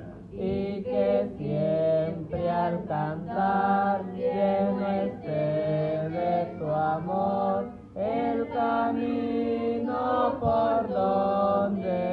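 A boy and a girl singing a Spanish worship song (alabanza) together in long, held melodic phrases with brief breaths between them.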